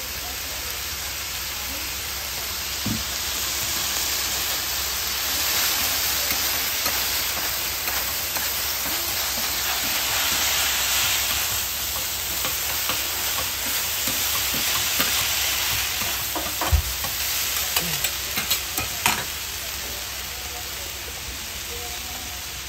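Yakisoba noodles with cabbage and meat sizzling on a hot iron teppan griddle as sauce is squeezed over them and metal spatulas scrape and turn them. The frying hiss swells in the middle, and several sharp spatula clacks come in the second half.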